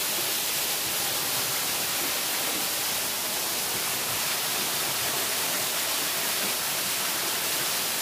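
Waterfall pouring onto rocks and splashing into a pool below, a steady, even hissing rush of water.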